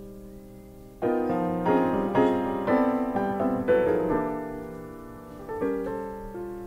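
Jazz piano playing chords and a melodic line, from a live 1961 trio recording. A soft, fading chord gives way about a second in to louder, fuller chords and moving notes, which ease off toward the end.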